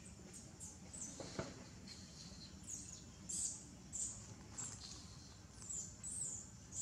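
Short, high-pitched chirps from a small animal, each falling slightly in pitch, coming about twice a second after the first couple of seconds.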